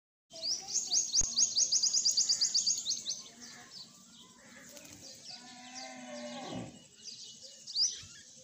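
Small birds chirping in quick, rapid series, loudest in the first three seconds. About five seconds in, cattle low in one long call that drops in pitch as it ends.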